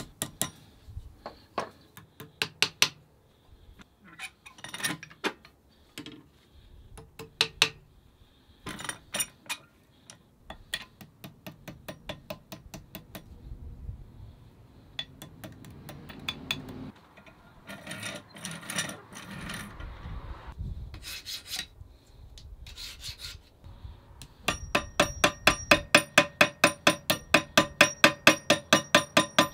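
A hammer striking in short runs of separate blows. Near the end comes a fast, even run of about four blows a second, each with a ringing pitch.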